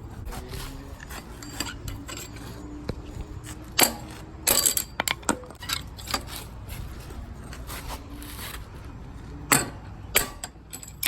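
BMX pegs being screwed onto the wheel axle by hand: scattered metal clinks and scrapes, loudest about four seconds in and again near the end.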